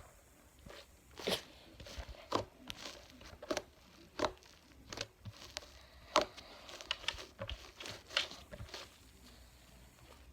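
Fluffy slime made with shaving cream being squeezed and pulled by hand: soft, irregular sticky pops and crackles, a dozen or so scattered through.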